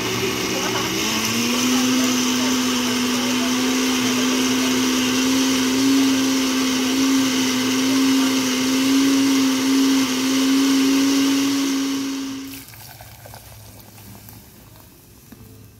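Cuisinart countertop blender running on a liquid tomato sauce. The motor's hum climbs slightly in pitch about a second in, holds a steady whine, then stops a few seconds before the end.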